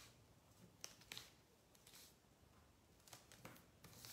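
Faint rustling and scraping of a magazine paper strip being folded and creased by hand, a few short brushes about a second in and again around three seconds.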